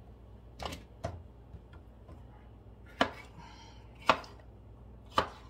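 Kitchen knife chopping an orange bell pepper on a plastic cutting board: two lighter chops in the first second, then three sharper ones about a second apart.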